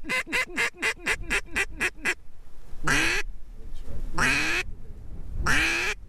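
Mallard duck call blown by a hunter to work incoming ducks: a rapid run of about a dozen short quacks, then three long drawn-out quacks about a second and a half apart. Wind rumbles on the microphone underneath.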